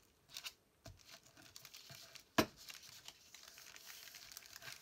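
Paper and parchment paper rustling and crinkling as an envelope flap is rubbed down with a glue stick, with a few soft knocks early and one sharp click about two and a half seconds in.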